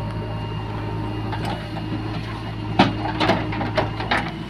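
Diesel engine of a JCB 3DX backhoe loader running steadily. About three seconds in, a short run of knocks and clatters as earth and stones fall from the bucket into a tractor trailer.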